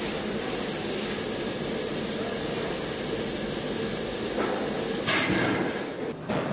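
Industrial forge machinery working red-hot metal: a steady, dense roar and hiss, with louder surges about four and five seconds in, then a sudden drop near the end.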